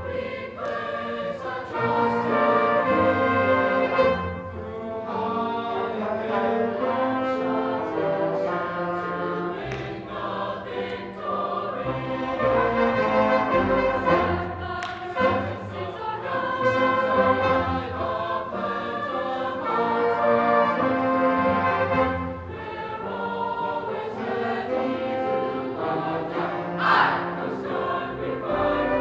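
Mixed high-school choir singing, accompanied by an instrumental band.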